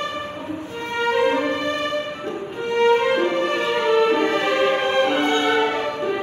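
String orchestra of violins and cellos playing a melody of held bowed notes that change pitch every half second or so.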